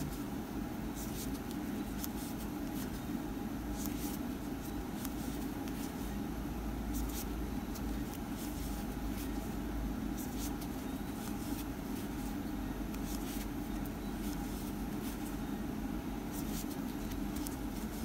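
Steady low background hum with faint, irregular soft clicks from a crochet hook working yarn.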